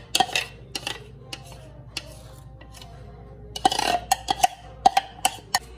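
A spoon scraping and tapping against a glass mixing bowl: a string of sharp clinks, with a busy run of scraping about three and a half seconds in.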